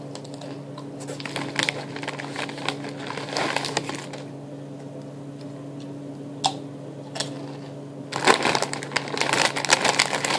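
Crunching and chewing of a wavy potato chip, with a couple of sharp crunches later on. From about eight seconds in, the plastic chip bag crinkles loudly as hands dig into it. A steady low hum sits under it all.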